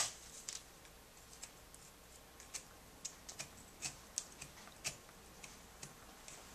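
Faint, irregular light clicks and ticks from a soldering iron tip working along the glass edge and old copper foil of a stained glass panel as the foil is melted loose, with a sharper knock right at the start.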